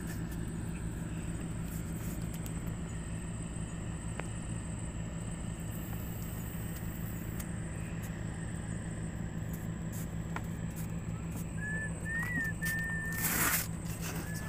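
An engine running steadily, a low even hum. A few short high chirps come near the end, along with a brief rustling burst.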